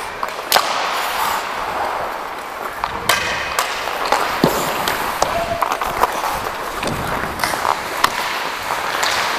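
Hockey skates scraping and carving on the ice, with several sharp clacks of sticks and puck during play.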